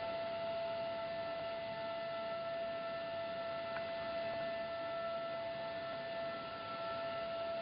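Corrugated-board production line (corrugator) running: a steady machine whine of several held tones over an even mechanical hiss.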